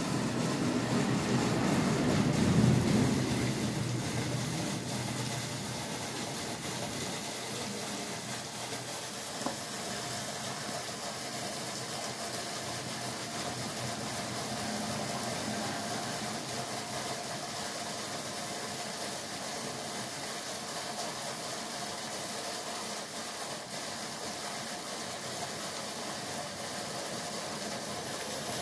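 Steady background hiss and hum, with a louder low rumble that swells and fades over the first few seconds and one faint click about nine seconds in.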